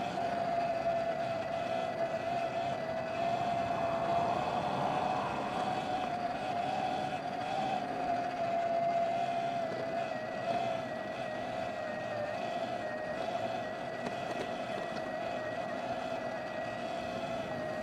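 Electric bike's motor whining in a steady tone that wavers slightly with speed and drops in pitch near the end, over rushing wind and tyre noise.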